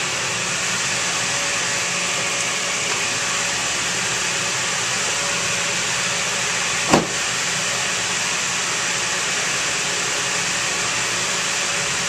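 Dehumidifier running, a steady hum and rush of air blowing through a plastic containment bag. A single short thump a little past halfway.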